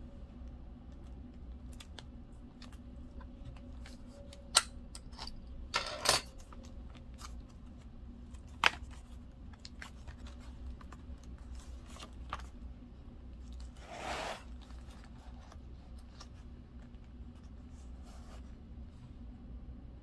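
Pens, markers and paper being handled at a desk: scattered small clicks and taps, a few sharper ones between about four and nine seconds in, and brief rustles around six and fourteen seconds in, over a steady low hum.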